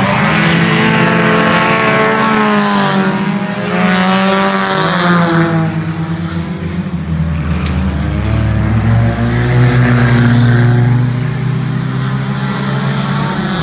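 Race car engines on a dirt oval track, several of them rising and falling in pitch as they rev and pass, then settling into a lower, steadier drone in the second half.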